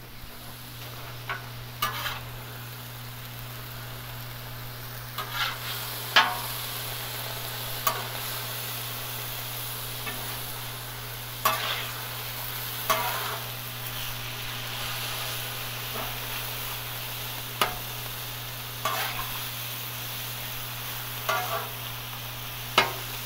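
Thinly sliced steak sizzling on a Blackstone flat-top griddle while two metal spatulas chop and turn it, with sharp clacks of steel spatula on the griddle plate every second or two.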